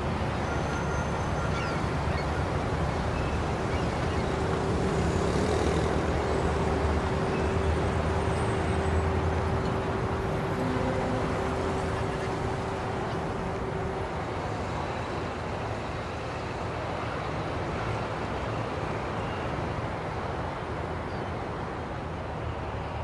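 Ferry's engines running with a steady low rumble as it manoeuvres in harbour, with a faint hum held for about ten seconds in the first half.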